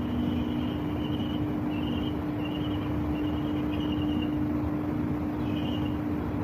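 Steady low hum over a broad rumble, with short high chirps repeating about every half second.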